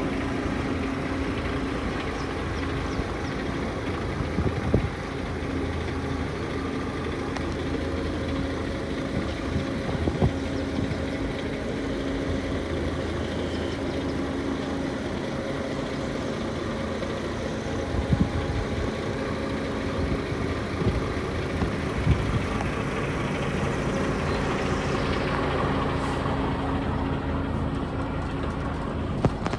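A DAF XF 460 tractor unit's PACCAR MX-13 diesel engine idling steadily, with a few light knocks over the top.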